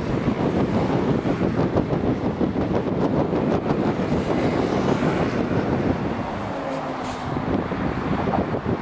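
Traffic on a bridge: a steady rumble of passing cars, a motorcycle and a city bus beside a commuter train crossing on the rail track. Around two-thirds of the way through, a passing vehicle's engine note falls in pitch.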